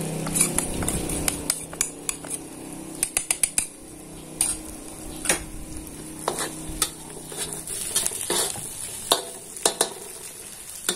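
Dried shrimp frying in chilli paste in a metal wok: a steady sizzle, with a metal spatula scraping and clinking against the wok as it is stirred, the clinks coming in a quick cluster about three seconds in and then every second or so.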